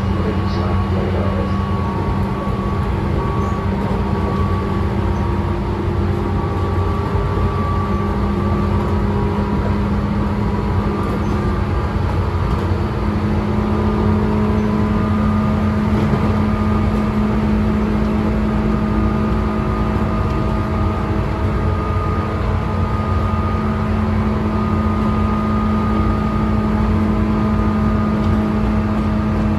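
Tobu 9000 series motor car running at speed: the steady whine of its thyristor chopper control, likened to the 201 series chopper sound, over the rumble of the wheels on the rails. The whine steps up slightly in pitch about 8 seconds in and again around 14 seconds.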